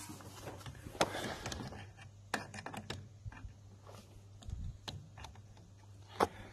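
Irregular clicks and knocks of hand tools and metal parts being handled in a car's engine bay while a 10 mm bolt is fitted to hold the earth strap and dipstick mount. The sharpest knocks come about a second in, around two seconds in, and near the end, over a steady low hum.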